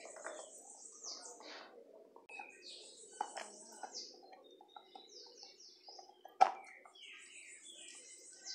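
Small birds chirping in quick runs of short falling notes, over scattered clicks of a dog gnawing a beef leg bone. A sharp knock about six and a half seconds in is the loudest sound.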